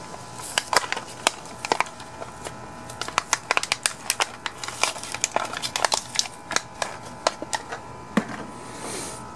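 Small paper parts packet being torn open and crinkled by hand, a run of irregular sharp crackles.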